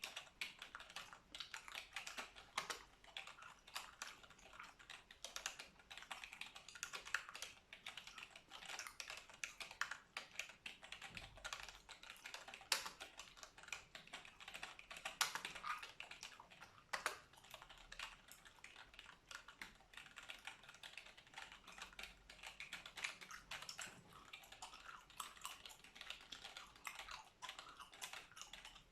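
Computer keyboard typing: fast, uneven runs of key clicks, with gum chewing close to the microphone.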